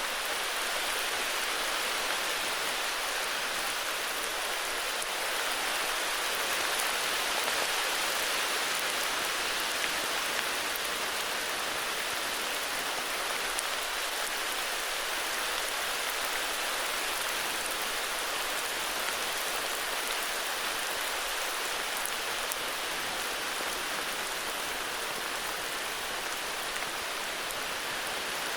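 Steady heavy rain falling, an even hiss of many drops with faint individual drop ticks.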